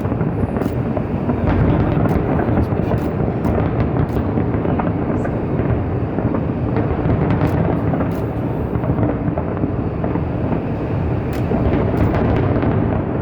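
Fireworks display: a continuous deep rumble of booming shell bursts and their echoes, with scattered sharp crackles and pops throughout.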